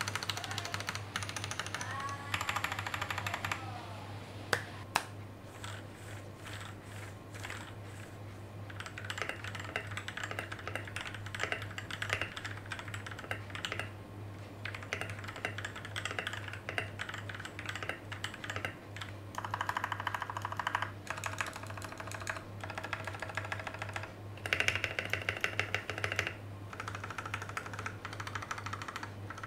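Royal Kludge RK71 Plus mechanical keyboard with brown switches being typed on: runs of clacking keystrokes with short pauses between them. For the first few seconds the unlubed modifier keys are pressed. After that the switches are lubed with Krytox 205 g0 and the clipped plate-mounted stabilizers with dielectric grease, to cut rattle. A steady low hum runs underneath.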